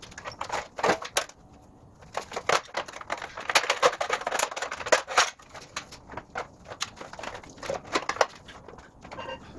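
Irregular light clicks, knocks and rustles from car body parts being handled during test fitting.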